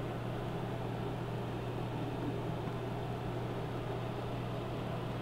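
Steady low hum under an even hiss: room tone, with no other event.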